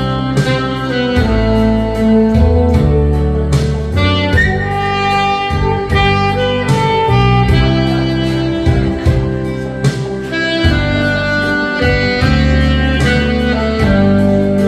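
Alto saxophone playing a sustained melody over a backing accompaniment of bass and regular drum beats.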